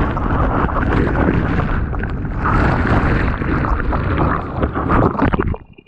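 Turbulent whitewater churning over the microphone underwater: a loud, rushing rumble full of crackling bubbles that cuts off abruptly near the end.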